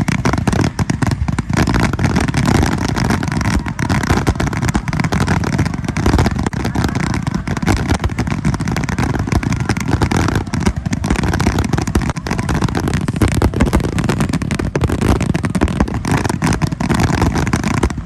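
Fireworks finale barrage: shells bursting in rapid, unbroken succession, the sharp reports blending into a continuous loud rumble with crackle.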